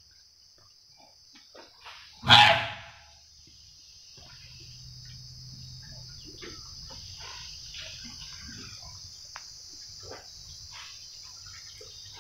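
A wild Asian elephant trumpets once, loud and brief, about two seconds in, over a steady high drone of crickets.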